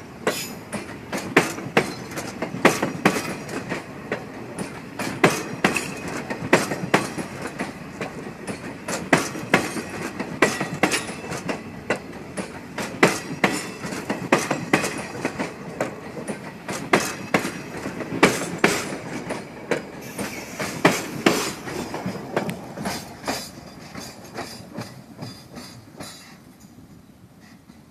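Argo Anggrek passenger train's wheels clattering over a railway turnout as the coaches run past: a long run of sharp, uneven clacks over a rumble, which fades away near the end as the train clears the points.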